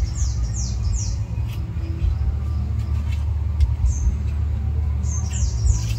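A steady low rumble, with a bird's quick run of falling high whistled calls at the start and again near the end.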